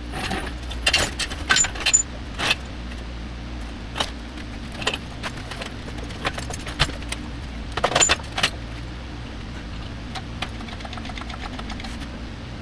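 Metal tools and engine parts clanking and rattling in irregular clusters as the engine is handled and taken apart, with the loudest clatter in the first couple of seconds and again about eight seconds in, over a steady low hum.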